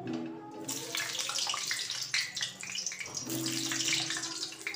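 Raw potato chunks dropped into hot oil in a kadai, sizzling and crackling from about half a second in, with sharp spits and pops as the pieces go in.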